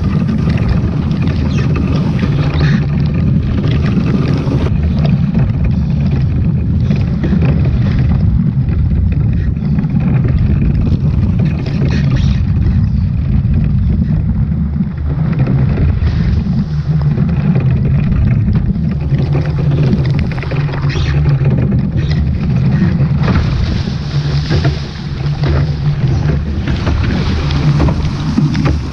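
Wind noise on the microphone and water rushing along the hull of a Onefly foiling dinghy sailing at speed, a steady loud rumble with a hiss of spray.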